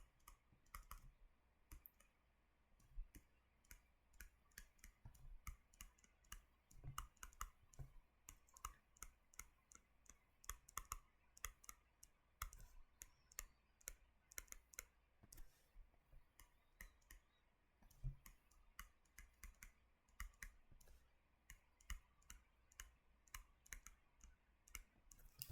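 Stylus clicking and tapping against a tablet screen during writing: faint, irregular clicks, often two or three a second, with short gaps between them.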